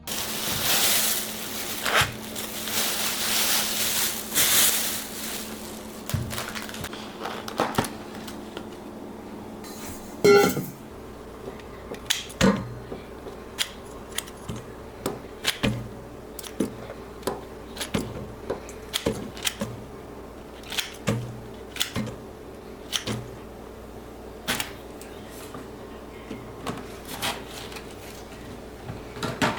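Kitchen work: light knocks and clicks of utensils and dishes, irregular but about one or two a second, with one louder ringing clink about ten seconds in. A rushing hiss fills the first few seconds.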